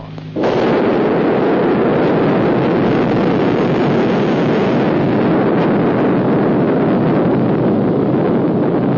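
Atomic bomb explosion on a 1950s film soundtrack: a loud, continuous rushing rumble that cuts in sharply about half a second in and holds steady without letup.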